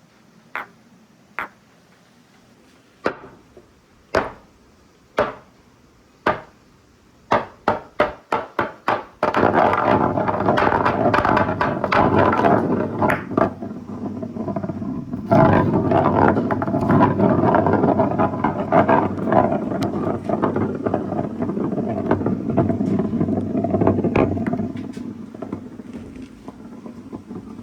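Marbles running down a toy marble run: single sharp clicks about a second apart that quicken into a rapid string of clicks, then from about nine seconds in a long, loud, continuous rolling rattle of marbles along the track that dies away near the end.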